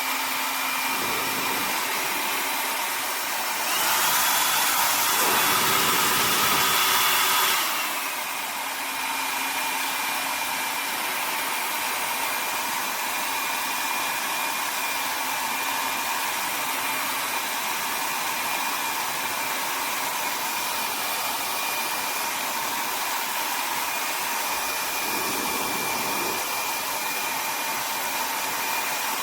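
Hair dryer running steadily: an airflow rush with a high motor whine. About four seconds in it goes to a higher setting, louder with the whine pitched up, then drops back to the lower setting about eight seconds in.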